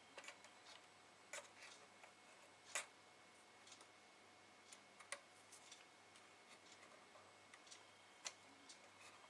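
Faint, sparse small clicks and taps of a plastic scale-model fuselage and tweezers being handled on a wooden workbench, the loudest a single click about three seconds in.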